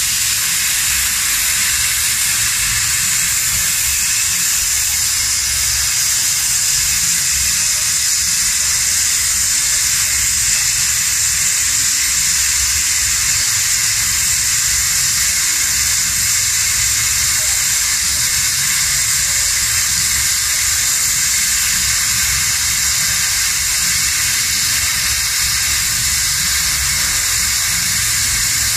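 Hand-held plasma cutter cutting through 20 mm mild steel plate: the arc and air jet make a steady, unbroken hiss.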